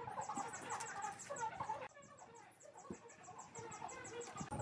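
Faint bird calls in the background over a fast, even high chirping, about eight chirps a second. The calls drop away about two seconds in, leaving the chirping.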